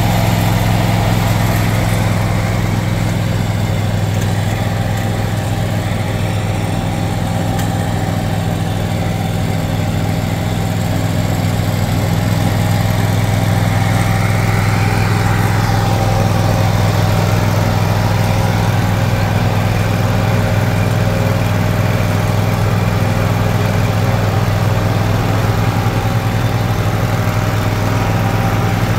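Exmark Turf Tracer walk-behind mower's engine running steadily at a constant speed.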